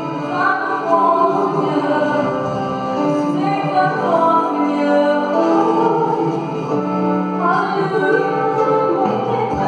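Live gospel praise-and-worship song: male and female vocalists singing into microphones over a band with keyboard and electric guitar.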